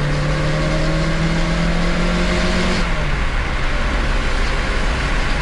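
Supercharged VW Corrado G60 engine (1.8-litre four-cylinder with G-Lader), heard from inside the cabin, pulling hard in third gear with a slowly rising pitch. About three seconds in the pitch drops back to a lower steady note.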